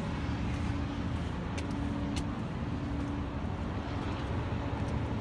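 Diesel engine of a semi-truck tractor idling steadily, a low even hum, with a few faint clicks about one and a half to two seconds in.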